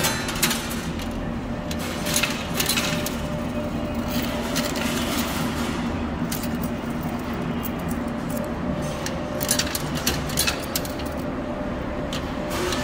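Coin pusher arcade machine: scattered metallic clinks of peso coins dropping and sliding on its shelves, over a steady machine hum.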